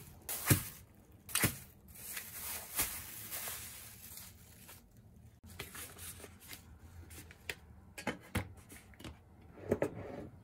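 Plastic cling film crinkling and tearing as it is peeled off supermarket packs of raw fish, with a few sharp knocks of the packs and trays on the counter.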